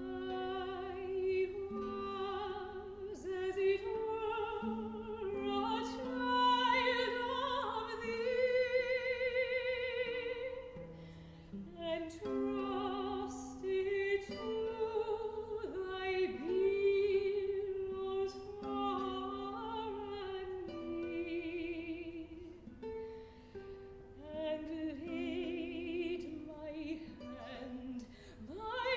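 Soprano singing an art song in an operatic style with vibrato, accompanied by a plucked baroque guitar.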